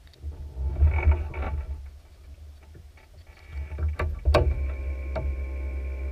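Arctic Cat ATV engine running at idle with a low, uneven putter and a few sharp clicks about four seconds in.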